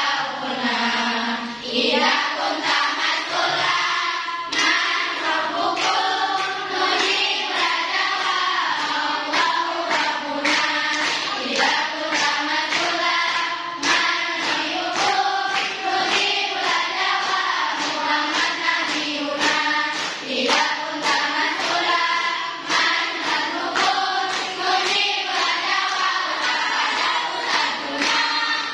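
A large group of girls and young women singing together in unison, with frequent crisp hand claps beating along.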